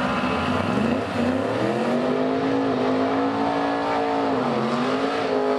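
Suzuki Samurai drag car's engine revving through a burnout, its rear tyres spinning. The pitch climbs about a second in, holds high, dips briefly and climbs again. Onlookers take its sound for a swapped-in LS V8 rather than a four-cylinder.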